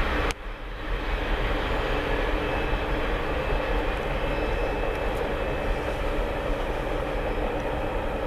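Freight train rolling past on the tracks: a steady rumble of passing cars with a faint hum under it. A sharp click and a brief drop in level come just after the start.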